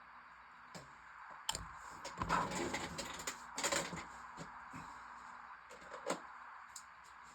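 Small clicks, knocks and clattering as a clamp and plastic model kit parts are handled on a workbench, with two sharper clicks and a busier stretch in the middle, over a steady faint hiss.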